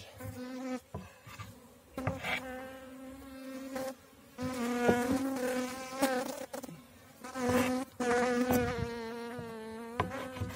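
Honeybees buzzing close by: a steady hum that swells louder and fades as bees fly near and away. A few short knocks sound through it.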